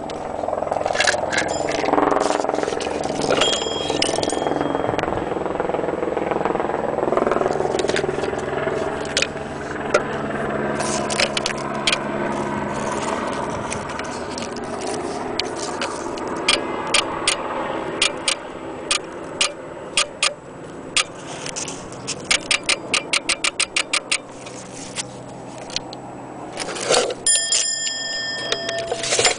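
Antique Postman alarm clock being handled: a rough rubbing and scraping noise in the first half, scattered sharp mechanical clicks with a fast run of them about two-thirds of the way through, and its bell ringing briefly twice, a few seconds in and again near the end.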